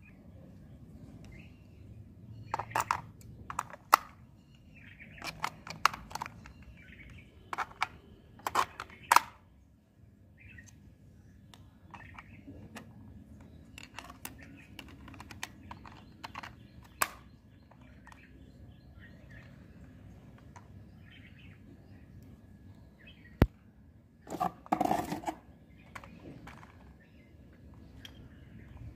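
Plastic clicks and clatter of AA batteries being pressed into a toy car's battery compartment and the compartment cover being fitted and snapped shut. A run of sharp clicks comes in the first third, then scattered light ticks, a single sharp snap and a short clatter past two-thirds of the way through.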